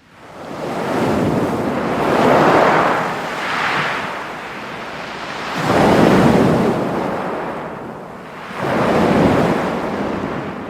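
Sea waves breaking on a pebble beach, with the wash of surf and the rattle of pebbles. It fades in at the start, then swells and ebbs in surges every few seconds, three of them large.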